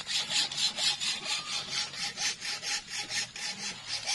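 Hand saw cutting through a thin rod with quick, steady back-and-forth strokes, about four to five a second.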